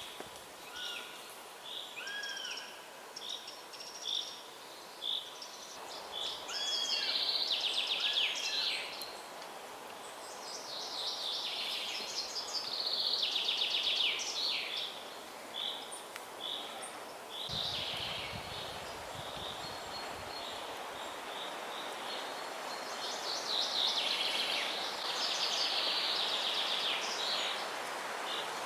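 Several forest songbirds singing at once, overlapping trilled and chirping phrases, over a steady background hiss. A brief low rumble comes about two-thirds of the way through.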